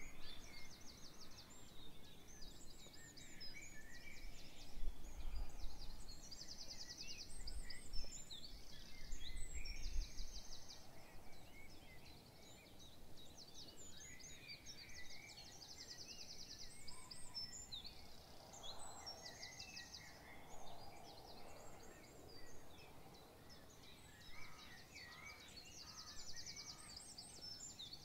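Several songbirds singing together: many high chirps and short calls overlapping, with rapid buzzing trills that recur every few seconds. A low rumble sits under the birds for about the first third.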